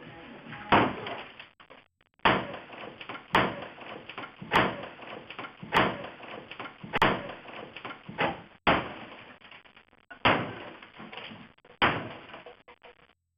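A 12 lb sledgehammer smashing into a DJ booth with about nine heavy blows, roughly one every second and a half, each followed by a short clatter.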